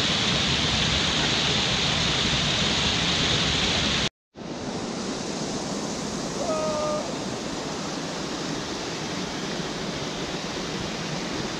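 Mountain stream cascading over rocks, a steady rush of water. The sound cuts out for a moment about four seconds in and returns quieter, with a brief faint tone a couple of seconds later.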